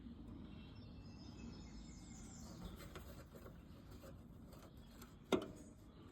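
Faint birds chirping over a quiet outdoor background, with a single sharp click or knock about five seconds in.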